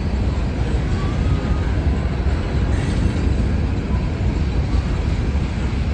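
A train rolling past: a steady, loud rumble of wheels on rail, with a few faint, brief wheel squeals.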